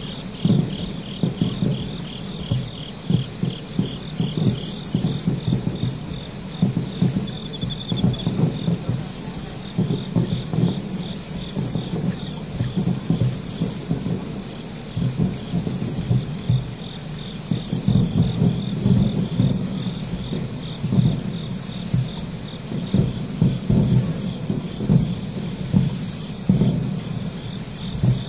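Fireworks bursting about 3 km away, heard as a dense, irregular run of dull rumbling thuds; these are the loudest sound. Over them, night insects trill and chirp without pause: a constant high trill, a fast pulsing buzz, and a very high chirp roughly once a second.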